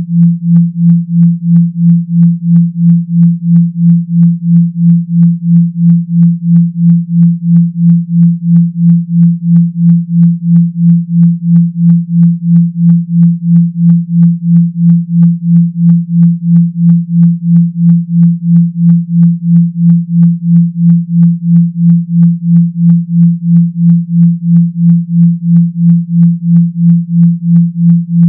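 Synthesized 170 Hz low humming tone, pulsing evenly about two and a half times a second like a phone vibrating. It is a speaker-vibration tone of the kind used to shake water out of a phone speaker.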